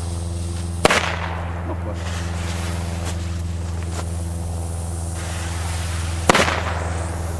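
Two firecrackers going off with sharp, loud bangs about five seconds apart, with a few faint pops between them. A steady low hum runs underneath.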